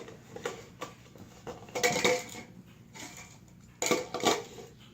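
Irregular light clattering and knocks of a plastic cup being pushed and batted around by a puppy, with the loudest clatters about two seconds in and near four seconds.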